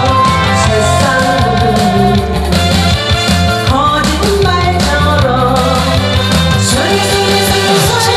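A woman singing a Korean song (gayo) live into a handheld microphone over loud instrumental backing music with bass and a steady beat.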